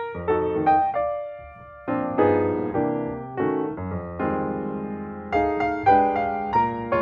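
Background piano music: chords and single notes struck and left to die away, with a brief lull about a second and a half in.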